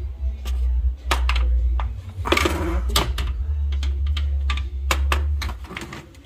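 Carbon fiber engine cowl panel being handled and pressed into place in an engine bay: a run of light clicks and knocks, with a longer scraping rub about two and a half seconds in, over a steady low hum.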